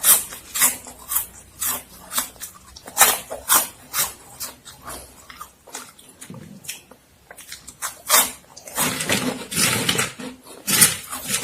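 Close-miked crunching and chewing of Momogi, a crispy extruded corn stick snack: sharp crunches about twice a second, turning into a denser run of chewing about nine seconds in.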